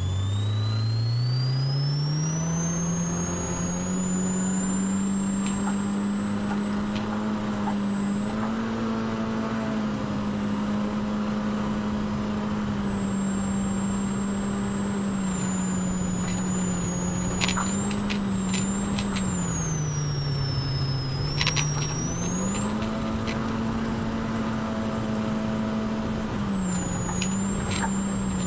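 Polaris RZR Pro R's 2.0-litre four-cylinder engine accelerating hard at first, then held at a steady high speed with a few brief dips and pick-ups, a high whine rising and falling with it, heard from the cockpit over road noise. A few sharp knocks come about two-thirds of the way in and again near the end.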